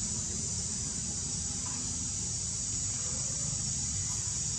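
Steady high-pitched drone of insects, unchanging throughout, over a low steady rumble.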